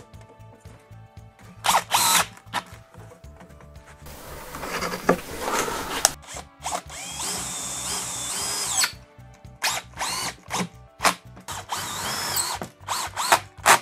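Cordless drill-driver fixing a metal wall bracket, running in short bursts and one longer run of several seconds, its motor whine rising and falling in pitch.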